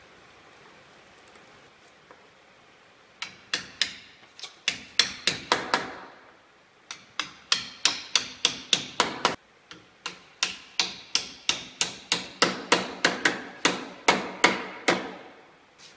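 Hammer blows on a glued teak door-frame assembly, knocking the joints home. After about three seconds of quiet they come in three runs of quick, sharp strikes, about three a second.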